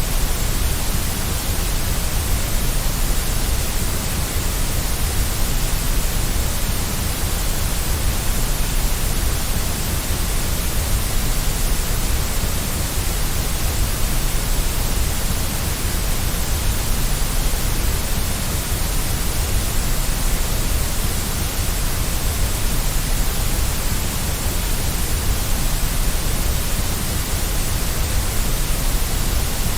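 Steady white noise for settling a baby to sleep: an unchanging, even hiss with a strong low rumble underneath.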